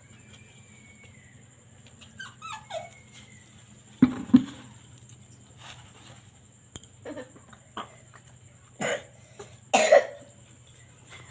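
A dog making a few short whines and several cough-like huffs, the loudest a quick pair about four seconds in and two more near the end.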